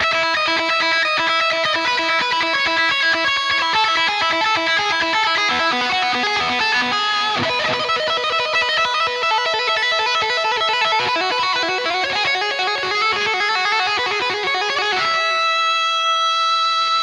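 Electric guitar lead on the bridge humbucker of a Harley Benton Fusion-III HH: fast runs of single notes, then one long held note from about fifteen seconds in.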